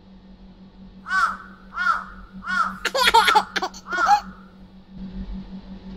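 A crow cawing, a quick series of about six harsh caws, each rising and falling in pitch and crowded together in the middle.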